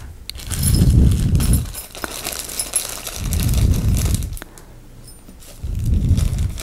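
Small metal lightsaber parts clinking in clear plastic bags as they are handled, with light plastic crinkling. Three low, muffled rumbles, each about a second long, are the loudest sounds.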